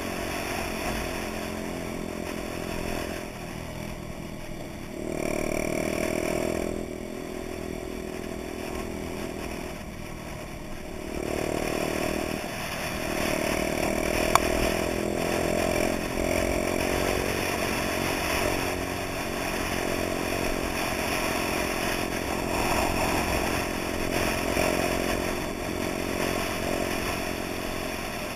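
Honda Dax moped's small four-stroke single-cylinder engine running under way, its revs rising and falling every few seconds with throttle and gear changes, with the other Daxes in the group running ahead. A single sharp click comes about fourteen seconds in.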